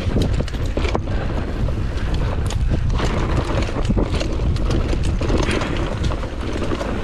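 Rally car driving through a stage, heard from on board: a steady low road and engine rumble with wind buffeting the microphone, and occasional sharp ticks.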